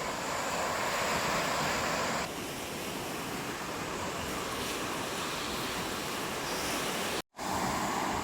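Sea surf washing onto a beach, a steady noise with a brief dropout about seven seconds in.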